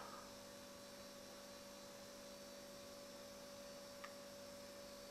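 Near silence: room tone with a faint steady electrical hum and hiss, and one faint tick about four seconds in.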